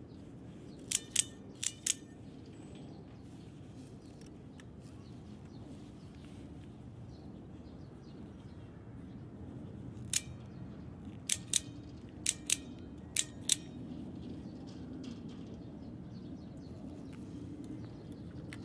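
Italian OTF stiletto switchblade firing and retracting its blade: sharp metallic clicks, mostly in quick pairs. There are two pairs about a second in, then a single click and three more pairs between about ten and fourteen seconds in, over a faint steady outdoor hum.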